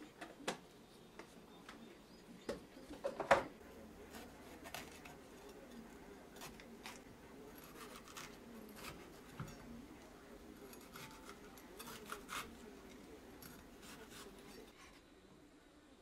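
Chef's knife slicing bell peppers on a wooden cutting board: crisp cuts and knife taps on the board at irregular intervals, with a louder cluster of knocks about three seconds in.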